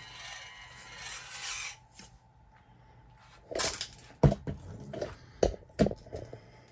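A 1/24-scale micro RC crawler's small electric motor and gears whirring for about two seconds as it drives over rock, followed by a handful of sharp knocks and bumps over the next few seconds.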